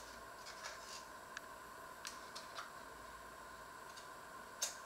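Light clicks and scrapes of a small utensil against a hand mixer's wire beaters and a stainless steel bowl as batter is scraped off them, with a sharper click near the end. A faint steady hum runs underneath.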